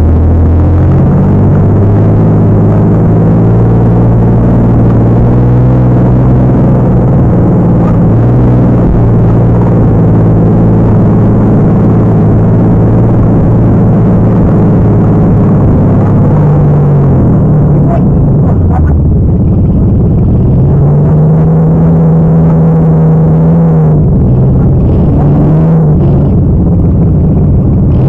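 Truck engine running loud at high revs, held steady for long stretches, dipping and then climbing again about two-thirds of the way through and easing off near the end.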